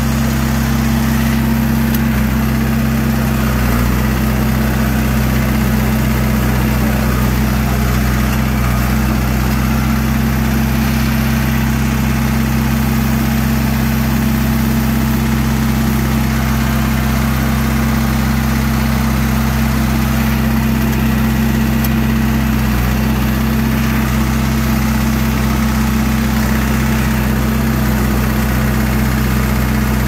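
John Deere 450's diesel engine idling steadily.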